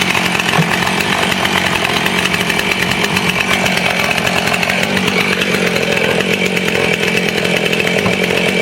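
Husqvarna 450 Rancher's 50.2cc two-stroke chainsaw engine running steadily at a raised fast idle just after a cold start, held above normal idle by the start setting.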